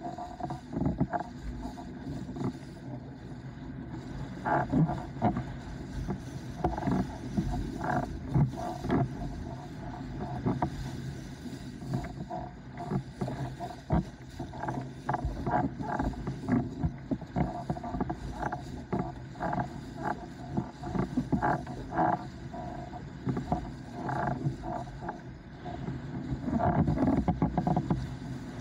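Starboard 104-litre windsurf board planing over chop: a steady rush of water under the hull, broken by irregular slaps and knocks as it hits the waves.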